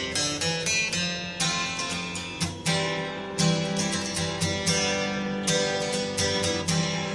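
Background music played on a plucked, strummed acoustic guitar, its notes and chords coming in quick succession.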